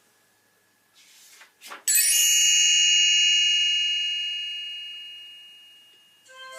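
A short swish, then a bright bell-like chime struck about two seconds in. It rings with several pitches and slowly fades away over about four seconds. It is the read-along's signal to turn the page.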